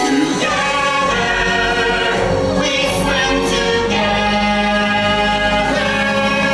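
Stage-musical song: several voices singing long held notes together in harmony over the show's backing music.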